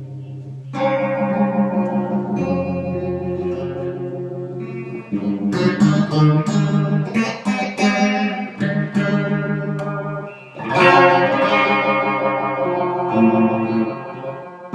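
Electric guitar strumming a few chords through a Pax Phase Tone phaser pedal, switched on, into a tube amp with reverb. The playing drops out briefly just before the last chord.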